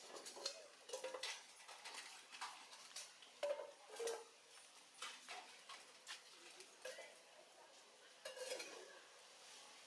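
Faint, scattered clicks and clinks at irregular intervals, with a few louder ones near the middle.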